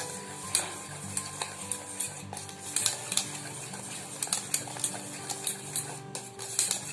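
Wire whisk beating whipping cream by hand in a stainless steel bowl, its wires clicking and scraping against the metal in quick, irregular strokes as the cream is whipped stiff.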